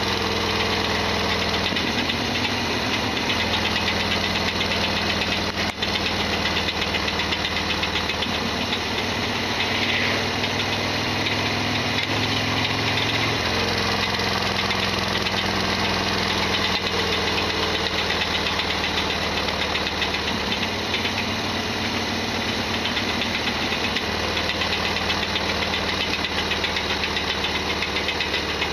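Harley-Davidson Sportster XL1200R's V-twin engine running under way with a loud mechanical rattle, the persistent abnormal noise the owner complains of. The engine note shifts about two seconds in and again about halfway through.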